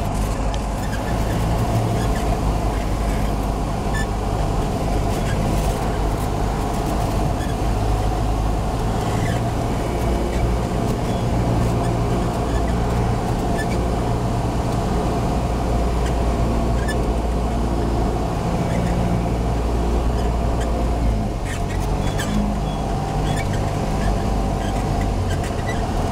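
Cabin noise of a Cessna 172SP on final approach: the four-cylinder Lycoming IO-360 engine and propeller running steadily with wind rush over the airframe. The engine note changes about three-quarters of the way through, with a few clicks as the aircraft comes onto the runway.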